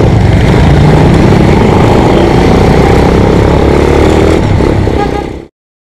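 Motorcycle engine running as the bike rides along, its pitch shifting slightly, mixed with a steady rush of road noise. It cuts off abruptly about five and a half seconds in.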